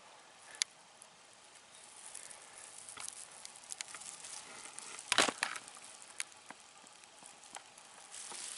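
Rustling and crackling of dry pine needles and dead leaves on the forest floor, with scattered sharp snaps and a louder cluster of crackles about five seconds in.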